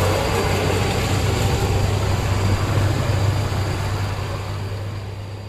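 Heavy diesel dump truck on the road, its engine and road noise dying away gradually.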